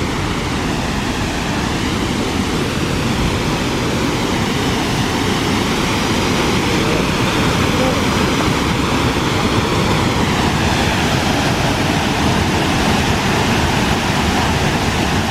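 Waterfall: a loud, steady rush of water pouring over rock.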